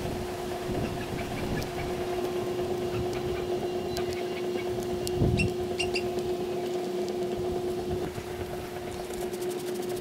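A steady machine hum holding one constant pitch, with light plastic clicks and a soft thump about five seconds in as a trigger spray head is handled on a plastic spray bottle.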